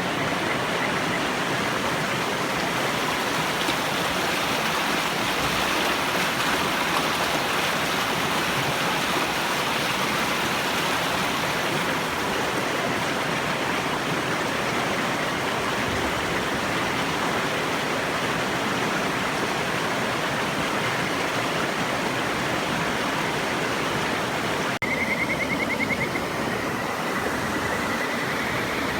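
A river rushing steadily. Near the end, after a short break in the sound, kajika frogs give high trilling calls twice.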